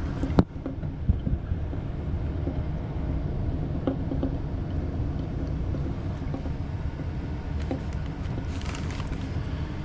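Steady low hum of running air-conditioning equipment. A sharp knock sounds about half a second in, and a short rustle comes near the end.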